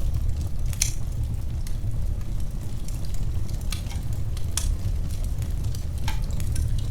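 Wood fire crackling in a fireplace: scattered sharp pops and snaps over a steady low rumble of flames, a louder pop about a second in.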